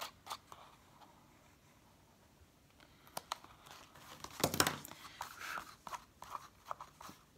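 Small scissors snipping a sliver off a cardstock pop-up piece at the start, a few short clicks. After a quiet pause, card is handled and pressed with paper rustling, and a louder knock about four and a half seconds in as the scissors are put down on the table.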